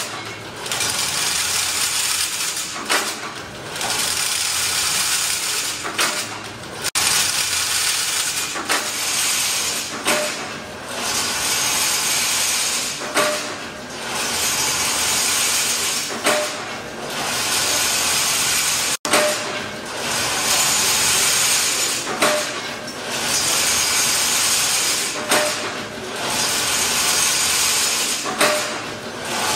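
Automatic chain link fence weaving machine running, a steady metallic whir and clatter of wire being woven into mesh. It drops off briefly about every three seconds as each weaving cycle ends, with a small click at each dip.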